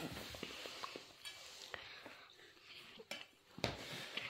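Faint scattered clicks and light knocks of a kitchen knife and raw pumpkin chunks being handled on a wooden cutting board, with a few sharper knocks about three seconds in.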